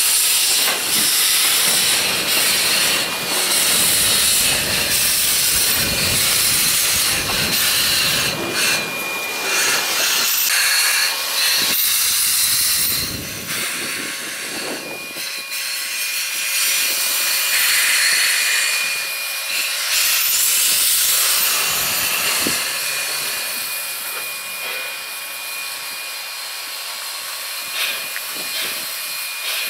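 Narrow-gauge steam locomotive NM25, an ex-Commonwealth Railways NM class engine built in 1925, hissing steam from its open cylinder drain cocks while shunting. The hiss is loud and continuous, easing off to a lower level after about 22 seconds.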